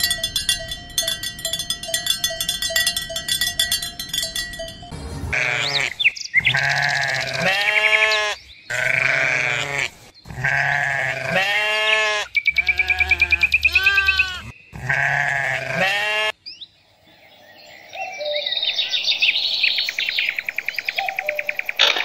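A run of animal calls. First a steady buzzing tone, then repeated short bleating cries that arch up and down in pitch, then a rougher pulsing call near the end.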